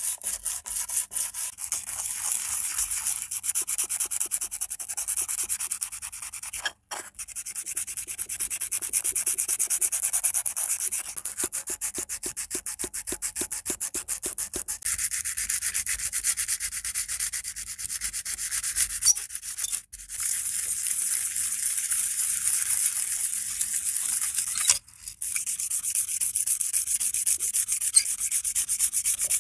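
Sandpaper rubbed by hand in quick back-and-forth strokes over sheet-metal parts: a steady scratchy hiss, broken by three short pauses.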